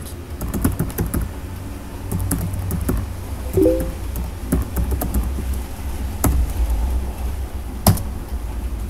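Computer keyboard keys clicking irregularly as a terminal command is typed, with one louder key press near the end as the command is entered. A steady low hum sits underneath.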